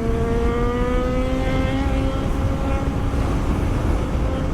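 Superbike engine held at high revs under wide-open throttle: one steady high engine note climbing slightly over the first two seconds and then holding, under heavy wind rumble on the microphone.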